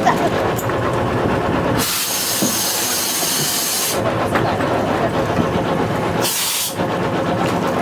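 A boat's engine runs with a steady hum, and compressed air hisses loudly twice, starting and stopping sharply: once for about two seconds near two seconds in, and briefly about six seconds in.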